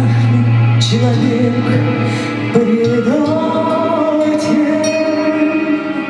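A woman singing long, held notes into a microphone over a recorded backing track, her line stepping up to a higher sustained note about halfway through.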